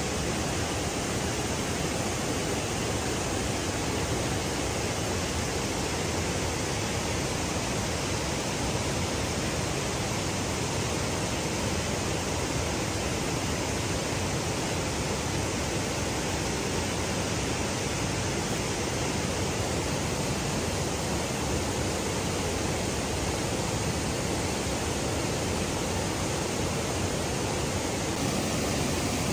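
Steady, even rush of water flowing from a dam, unchanging throughout.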